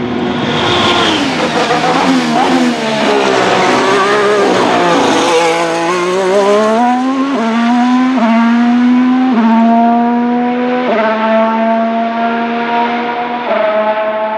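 Alpine A523 Formula 1 car's turbocharged V6 hybrid engine on track. Its pitch sinks and wavers over the first few seconds, then climbs again under acceleration, with five quick upshifts, each a sudden drop in pitch, through the second half.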